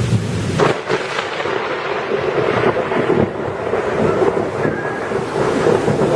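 Thunderstorm: heavy rain and wind as a steady, even rush, with a sharp crack less than a second in.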